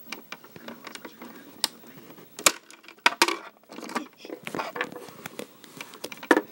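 Small plastic toy figures and playset pieces being handled and moved, giving irregular clicks, taps and knocks, the sharpest a couple of knocks about halfway through.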